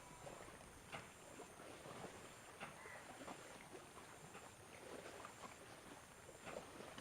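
Faint hand-on-head massage sounds: soft rubbing with short, irregular taps and clicks about once a second.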